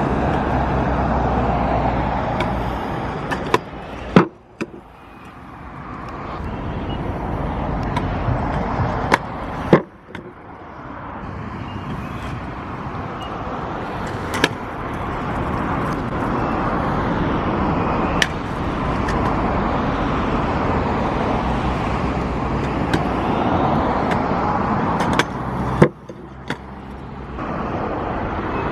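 Stunt scooter wheels rolling on concrete, with several sharp clacks of the deck and wheels striking the ground.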